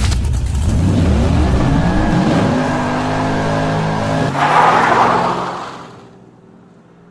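Car engine revving and accelerating, its pitch climbing over the first two seconds and then holding, with a brief rush of noise, like tyre squeal, about four and a half seconds in before the sound fades away.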